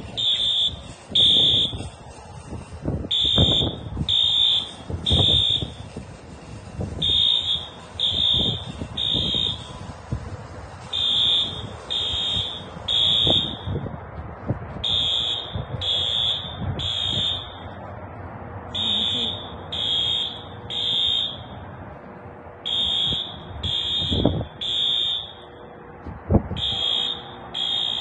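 Fire alarm horns sounding the temporal-three evacuation pattern: three high-pitched beeps, a pause, then again, repeating about every four seconds. Low thumps come and go underneath.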